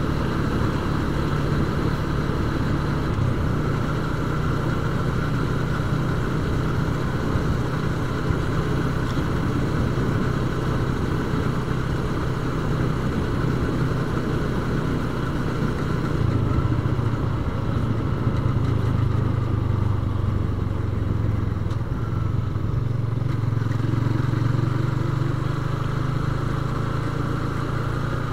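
Yamaha Vixion motorcycle's single-cylinder four-stroke engine running steadily while riding at low speed, heard from on the bike; its pitch shifts a little about halfway through and again later.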